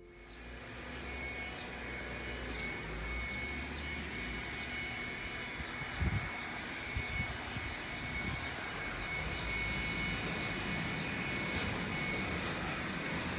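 Garbage truck running some way down the street, heard as a steady low engine rumble under outdoor street noise, with a few soft thumps about six to seven seconds in.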